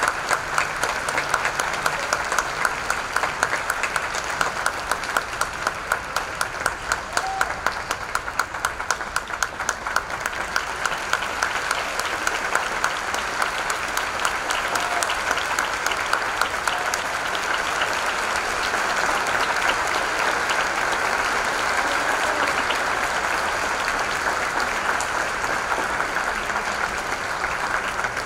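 Theatre audience applauding steadily. Sharp, regular claps stand out for the first ten seconds or so, then the applause becomes denser and more even.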